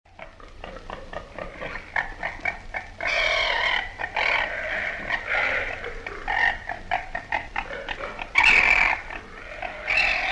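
Babirusa calling: a rapid run of short grunts broken by louder, longer calls, the loudest about eight seconds in.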